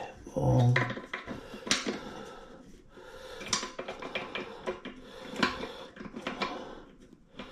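Scattered clicks, knocks and scrapes of hard plastic and metal as a toilet seat's mounting bolts are turned by hand and the seat is shifted to line it up. A short low tone sounds about half a second in.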